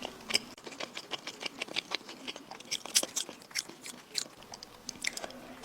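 Close-miked chewing of food: a quick, irregular run of wet, crackly mouth clicks and smacks.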